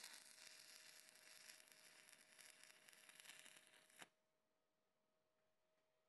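Stick welding: the electrode's arc crackles and hisses steadily on steel, then cuts off suddenly about four seconds in as the arc is broken.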